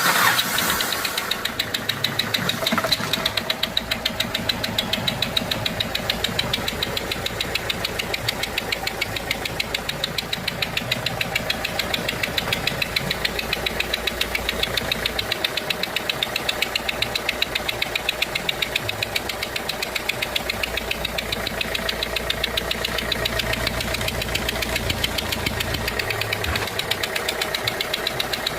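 Renault 1.5 dCi four-cylinder diesel engine running steadily with an even, rapid ticking knock. The noise comes from compression escaping past a failed seal on one of the fuel injectors.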